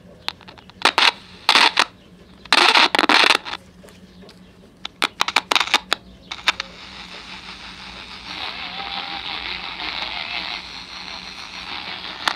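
Sokol 310 pocket AM transistor radio's speaker putting out static: sharp clicks and loud crackling bursts as its slide band switch is worked back and forth, then a steady hiss that grows louder in the second half. The static without a station is the radio's fault, which the owner suspects is a dirty band switch not connecting the tuning capacitor.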